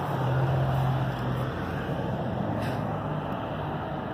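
A motor vehicle engine running, its low hum strongest for about the first second, over steady traffic noise from the road.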